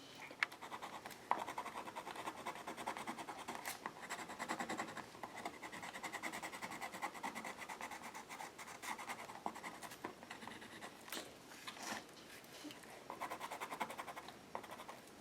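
White Stabilo pencil scratching across a board book page in quick, short strokes of drawing or colouring, with a few brief pauses.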